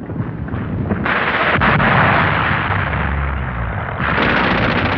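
Artillery bombardment: a dense, continuous din of gunfire and shell blasts. It grows louder about a second in and swells again at about four seconds.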